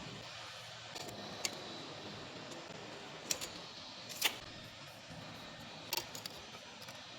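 A steady background hiss with a handful of short, sharp clicks and knocks, the loudest a little past the middle.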